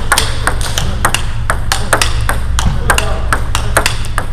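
Table tennis rally: the ball clicks sharply off the bats, one faced with Yasaka Rakza Z rubber, and bounces on the table, about three to four clicks a second.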